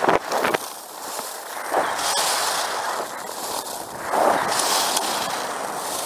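Skis hissing over snow with spraying snow and wind buffeting the microphone, swelling and fading in waves and loudest about four seconds in. A few sharp clicks in the first half second.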